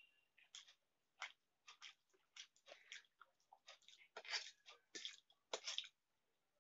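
Close-up mouth sounds of someone eating Maggi instant noodles: a run of irregular wet chewing and lip-smacking clicks, busiest and loudest a little past the middle. A spoon gives a short metallic ring against a steel plate right at the start.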